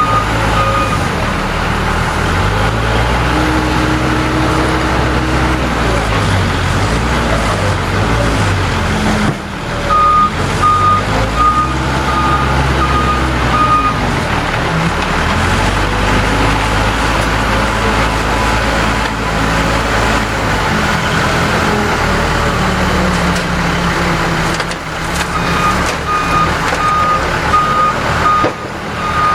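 Case 580L backhoe loader's diesel engine working under load, its revs rising and falling as it scoops and moves. A backup alarm beeps steadily at the start, again from about ten to fourteen seconds in, and once more near the end.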